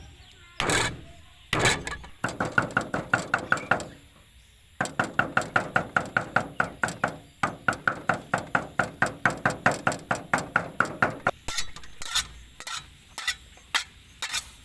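A knife chopping garlic on a cutting board: a few single knocks, then two runs of fast, even chopping strokes at about five a second, the longer one lasting around six seconds, then a few scattered knocks.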